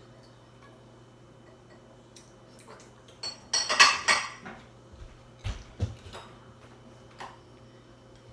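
Dishes and utensils being handled on a kitchen counter: scattered clinks and knocks, with a louder stretch of rattling clatter about three and a half seconds in, then a couple of dull knocks. A faint steady hum runs underneath.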